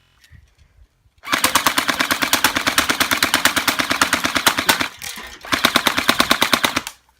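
Airsoft rifle firing on full auto: a long burst of rapid, evenly spaced shots over a steady mechanical whine, a short pause, then a second, shorter burst.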